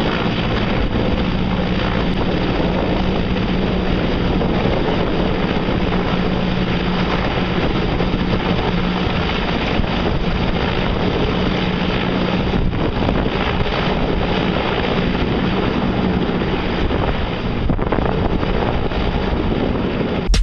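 A large helicopter's rotor and engines running steadily, with a low hum through most of it, mixed with heavy wind rumble on the microphone.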